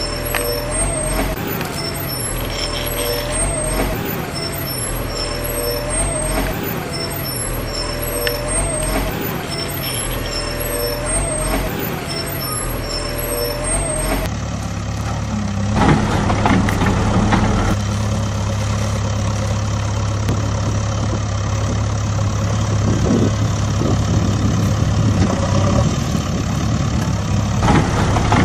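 Heavy truck engine sound effect. For the first half it runs in a pattern that repeats about every second and a half, then changes abruptly about halfway to a steady low engine drone.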